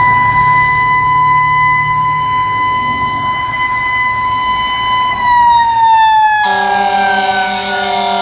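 Fire engine siren held at a steady high wail, then sliding down in pitch from about five seconds in. About six and a half seconds in, a second, lower steady blaring tone joins it.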